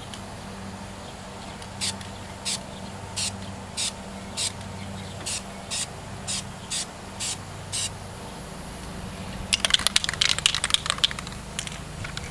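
DupliColor Perfect Match aerosol touch-up paint can sprayed in eleven short hissing bursts, roughly one every half second, laying light coats. Near the end a dense, loud rattle of rapid clicks for about two seconds, the can being shaken with its mixing ball rattling.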